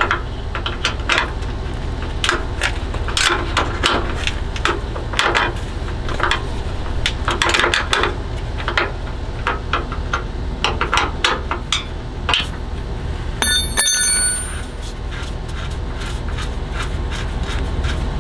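Hand tools working the bolts that hold the front sway bar bracket to an SUV's frame: irregular metallic clicks and clinks throughout. About thirteen seconds in there is one sharp ringing metal clink. A steady low hum runs underneath.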